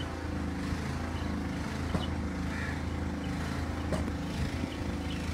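A steady low mechanical hum, like an engine running, with a couple of faint clicks.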